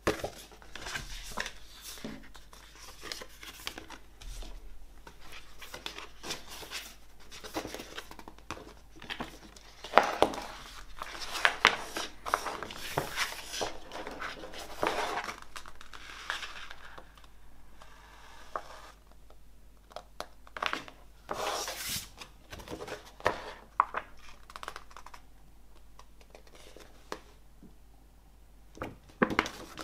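Hands handling the paper, cardboard and plastic contents of a CD album box set: irregular rustling, sliding and light knocks of card and paper, with a few sharper clicks about a third of the way in and again about two-thirds in.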